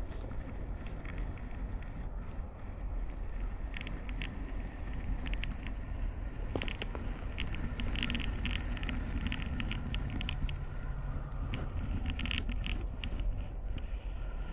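Steady low rumble and rustle from a GoPro Hero 8 sliding along a taut jute twine line, with scattered short high ticks and squeaks from about four seconds in until near the end.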